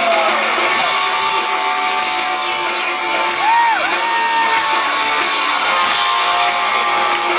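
Rock band playing live on a concert stage, with electric guitar to the fore. A held melody note dips and comes back up about three and a half seconds in.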